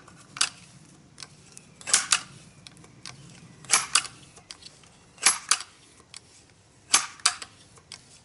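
Crosman Legacy 1000 multi-pump pneumatic air rifle being pumped: the forearm pump lever is swung open and shut about five times, one stroke every second and a half or so. Each stroke gives a sharp double click.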